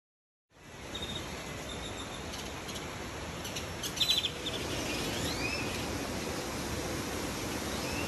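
Riverside ambience: a steady noisy background with birds calling over it. Short chirps come first, then a rapid trill about four seconds in that is the loudest sound, followed by several rising-and-falling whistled calls.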